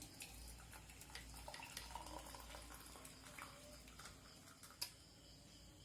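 Hot herbal decoction being poured faintly from a pan into a cup, with a single light click near the end.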